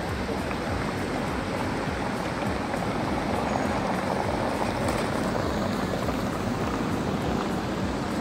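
Steady rushing noise of a busy city square, even throughout, with no distinct sounds standing out.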